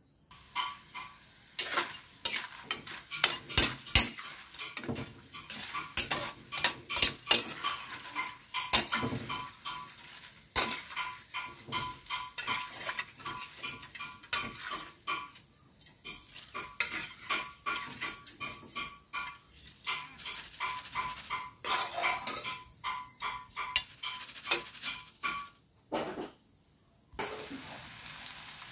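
Metal spatula and wire-mesh skimmer clanking and scraping against a steel wok of hot oil, with many sharp ringing knocks, as bits are scooped out of the oil. Near the end the knocking stops and raw potato slices sizzle steadily in the oil.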